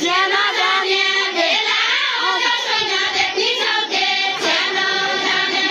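Group of high voices singing a Deuda folk song together, a Far-Western Nepali song sung by dancers in a line.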